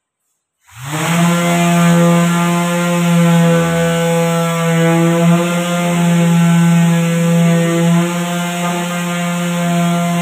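Corded electric pad sander running against a wooden door frame, sanding the wood. It starts abruptly just under a second in, then runs steadily with a strong, even motor hum.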